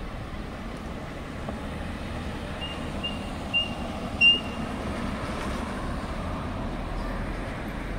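Night street traffic at an intersection, with electric scooters going by. A few seconds in come four short, high electronic beeps, the last one loudest, and near the end a car passes close with a low rumble.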